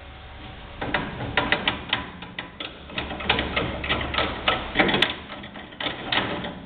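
Rapid, irregular sharp metallic clicking and clatter of hand tools working on the car's front suspension.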